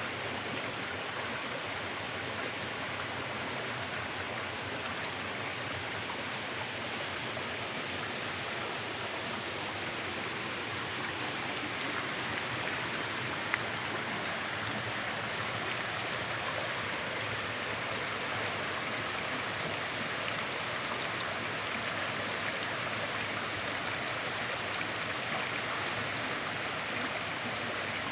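Steady rush of stream water flowing, with one brief faint click about halfway through.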